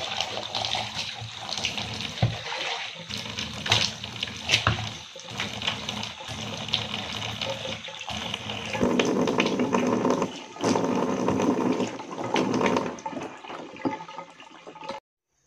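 Water running from a bathtub faucet and splashing as hair is rinsed under it to wash out hair dye. It gets louder and fuller for a few seconds past the middle, then cuts off abruptly just before the end.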